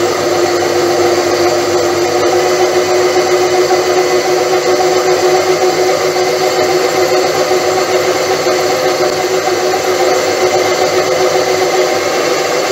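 Metal lathe running steadily, a loud even machine hum with a strong steady tone. Its motor is driven by a variable-frequency inverter, set at about 50 to 56 Hz.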